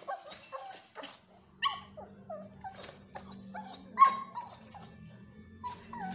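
Pitbull puppy whining in a string of short cries that fall in pitch, two or three a second, with a louder yelp about four seconds in.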